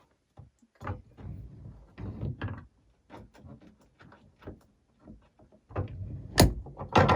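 Chiropractic adjustment on a drop table: a person's body shifting and pressing on the table, with a run of small knocks and rubbing. About six seconds in comes a sharp, loud knock, then a second loud thud just before the end.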